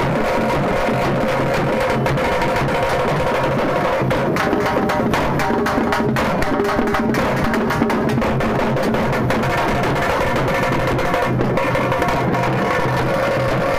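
A street drum band playing loudly: a side drum beaten fast with two sticks and a bass drum, in a dense, driving rhythm over steady held pitched tones.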